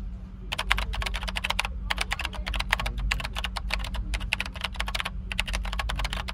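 A rapid, uneven run of light clicks like typing on a keyboard, pausing briefly twice, over a steady low hum.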